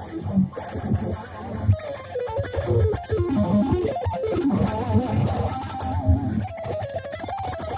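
Solo electric guitar played lead: fast lines of notes with wavering vibrato and sliding, bent pitches, over low picked notes.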